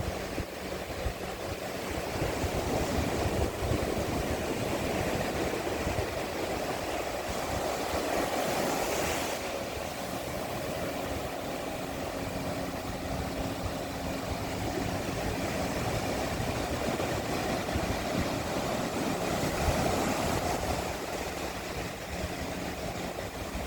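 Calm sea lapping gently on a beach, a steady wash of water noise that swells and eases slowly. A faint low steady hum sits underneath, engine-like.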